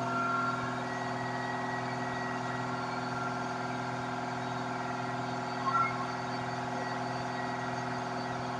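Desktop diode laser engraver running: its module cooling fan and stepper motors give a steady hum with several unchanging whining tones. A short chirp about six seconds in.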